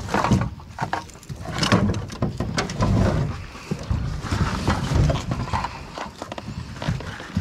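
Irregular knocks, thumps and rustling from handling a freshly caught alligator and the rope it is tied with.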